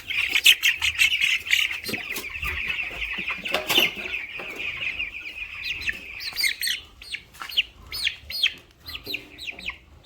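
A flock of young broiler chicks peeping loudly in a dense chorus of high chirps. The farmer says they are restless because they are hungry on restricted feed. About six seconds in the chorus thins to separate falling peeps, with a few short knocks from the birds being handled.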